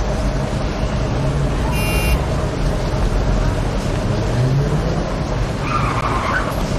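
Heavy city street traffic: a steady rumble of engines and road noise, with vehicles' engine hum swelling and fading as they pass. A brief high squeal cuts through about two seconds in.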